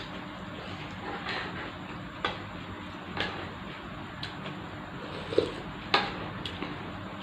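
Eating sounds from a bowl of glass-noodle soup: scattered sharp clicks of a spoon or chopsticks against the bowl and brief slurps and chewing, the loudest clicks a little over halfway through, over a steady low hum.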